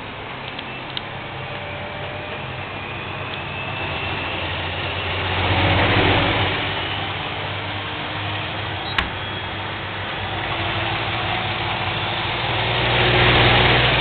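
Privileg washing machine and tumble dryer running together with their doors open: a steady motor and drum hum that swells twice, with one sharp click about nine seconds in.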